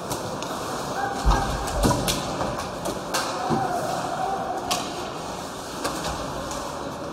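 Ice hockey play in a rink: sharp clacks of sticks on the puck and ice, two heavy thuds of bodies or the puck against the boards about a second in, and a few drawn-out shouts from players or spectators over the steady hum of the arena.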